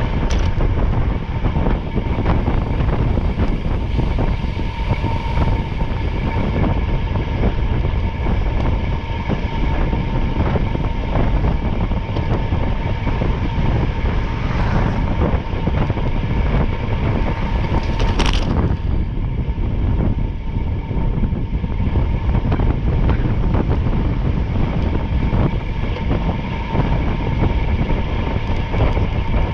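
Steady running noise of a moving vehicle: a deep rumble with a constant whine, and a brief hiss about eighteen seconds in.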